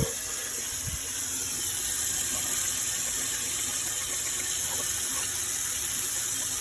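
Steady rushing hiss, like running water, with two dull thumps in the first second.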